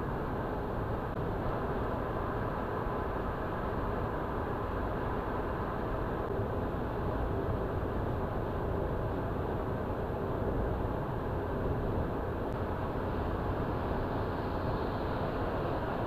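Steady road noise of a car cruising at highway speed, heard from inside the cabin: tyre and engine noise that stays even throughout.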